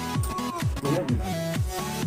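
Background electronic music with a steady beat of deep, falling bass notes about four times a second and short melodic tones over it.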